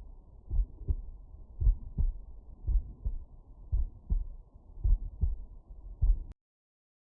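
Human heartbeat heard through a stethoscope over the mitral valve area: steady lub-dub pairs of low thumps, about one beat a second. The sound cuts off suddenly about six seconds in.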